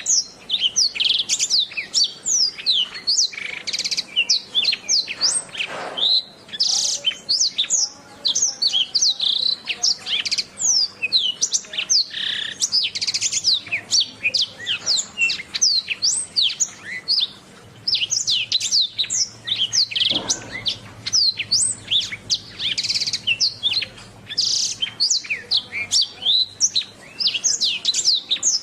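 Domestic canary singing a long, continuous song of rapid trills and quick falling notes, with brief pauses between phrases.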